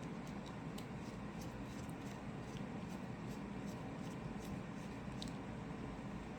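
Faint, scattered small clicks and taps of tiny metal lock parts (pins, springs and drivers from a disassembled pin-tumbler cylinder) being handled, over a steady low hiss.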